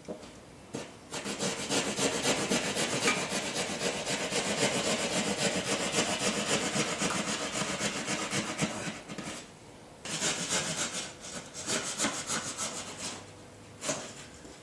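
Hand plasterboard saw cutting out a socket opening in plasterboard with quick back-and-forth strokes: one long run of sawing, a pause of about a second, then a shorter run. A single knock comes near the end.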